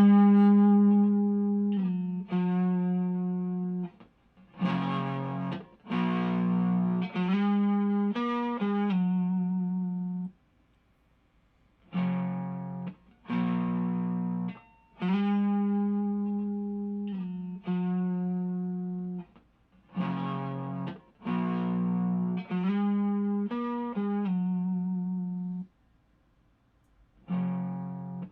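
Electric guitar on its neck single-coil pickup, played through a Xotic SL Drive overdrive pedal into a small valve amp: phrases of held chords and notes with light overdrive, each left to ring and fade, with two short pauses.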